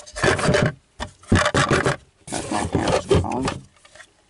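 Small plastic toy wheelie bins scraping and rubbing against a cardboard box as they are handled, in three rough bursts with short pauses between them.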